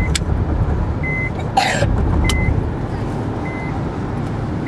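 Steady road and engine noise inside a moving car's cabin, with a short high warning beep from the car repeating about once every second. A brief rustling burst comes about a second and a half in.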